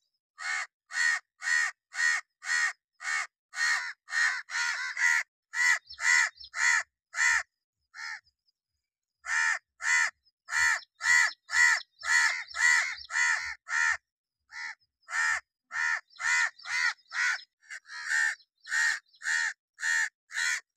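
House crow cawing in a long series of short caws, nearly two a second, with a pause of about a second partway through.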